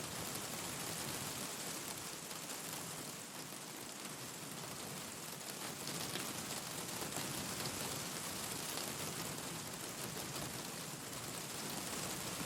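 Steady rain, an even hiss, with faint scattered crackles from a wood fire in a fireplace.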